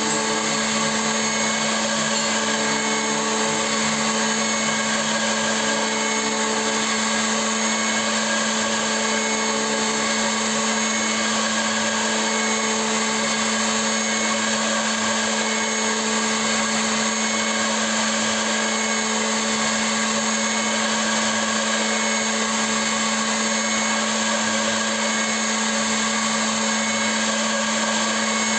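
CNC milling machine running steadily: an unchanging machine hum with one strong low tone and several fainter, higher steady whines.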